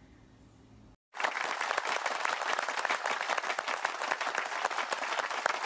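Applause, a crowd clapping. It starts abruptly about a second in, after faint room tone.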